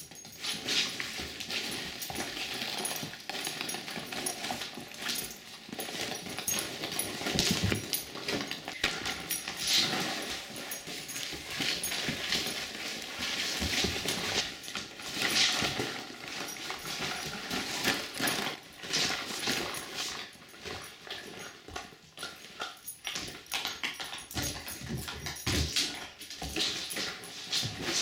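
Wolf pup rummaging in a pop-up fabric ball pit: small plastic balls rattle and knock together and the fabric cube rustles and scrapes, in irregular bursts.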